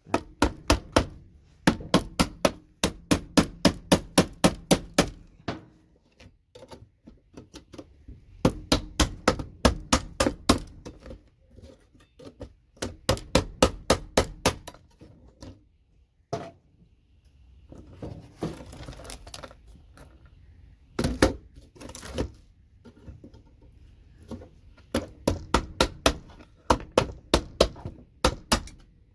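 Rapid runs of sharp knocks, about four or five blows a second in bursts of several seconds with short pauses between, as slot connectors are knocked off computer circuit boards.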